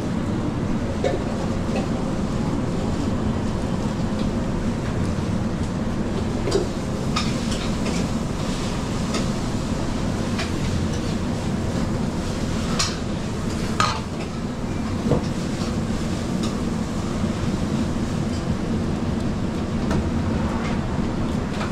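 Metal spoon and ladle clinking and scraping against steel bowls and pans as cooked spätzle is tossed and spread, over a steady low rumble of kitchen machinery. The clinks come in a scattered run from about a third of the way in to past the middle.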